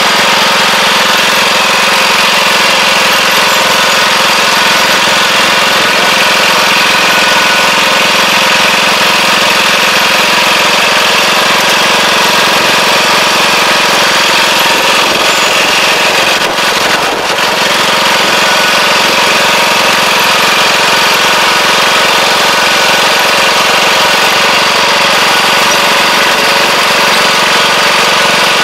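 Kubota four-row riding rice transplanter's engine running steadily close up as the machine works the paddy, with a slight brief dip about two-thirds of the way through.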